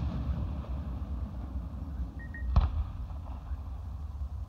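Aerial firework shell bursting with a single sharp bang about two and a half seconds in, over a steady low background rumble.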